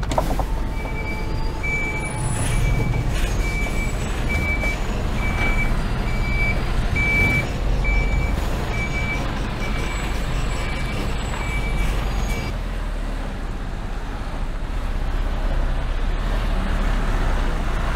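Mercedes Actros tipper lorry reversing: its reverse alarm beeps steadily, about once every 0.8 seconds, over the low running of the diesel engine. The beeping stops about two-thirds of the way through while the engine keeps running.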